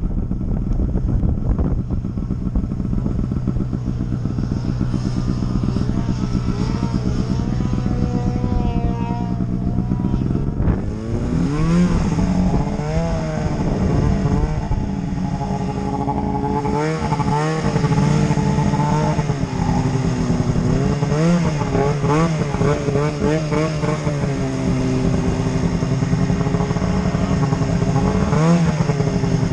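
Snowmobile engine running under changing throttle, its pitch rising and falling again and again. It gets louder about a third of the way in.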